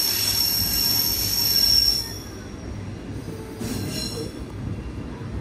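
Narrow-gauge Berner Oberland Bahn train's wheels squealing on the rails: a high, ringing squeal over the low rumble of the running train, cutting off about two seconds in, with a brief fainter squeal a little after the middle.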